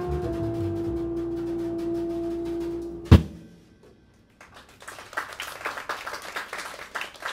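A jazz quartet of saxophone, piano, double bass and drums holds the final note of the tune and cuts it off with one sharp hit about three seconds in. After a brief silence, a small audience starts clapping.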